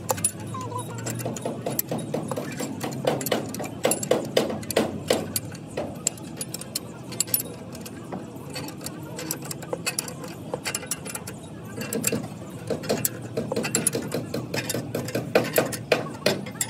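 Dense, irregular clicks and metallic knocks, typical of hand tools and metal parts being handled during mechanical work.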